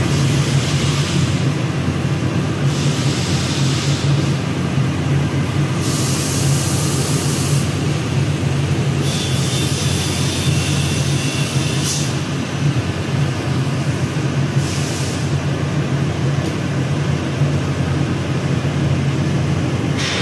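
Vacuum blower of a CNC knife cutting machine's suction table running steadily with a low hum, with a few stretches of louder hiss partway through.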